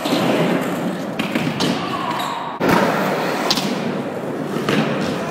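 Skateboard wheels rolling on the ramps and floor, broken by several sharp clacks and thuds of the board hitting, the hardest about two and a half seconds in.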